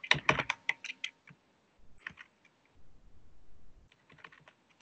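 Typing on a computer keyboard: a quick run of key clicks in the first second, then a few scattered keystrokes.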